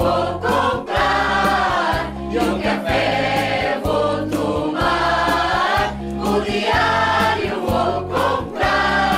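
A choir singing a Christmas song in Portuguese over an instrumental backing whose low notes change about once a second.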